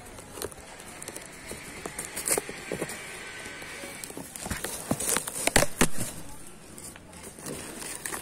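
Cardboard carton being handled, with crackling, scraping and rustling, and a cluster of sharp knocks and clicks about five to six seconds in.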